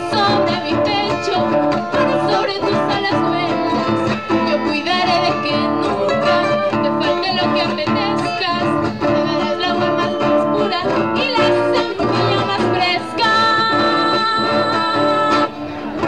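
Live song performance: a woman singing, accompanied by acoustic guitar. About 13 seconds in, the music settles on a steady held chord, which breaks off near the end.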